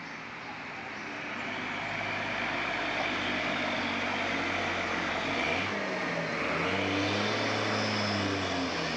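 Bus engine labouring up a steep incline. It grows louder about a second and a half in, and its pitch drops and shifts around five and a half seconds in.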